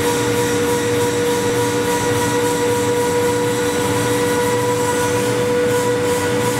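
450XHD air-turbine spindle on a robot arm milling a composite block at high feed: a steady whine of several held tones over a loud rushing hiss of exhaust air and cutting.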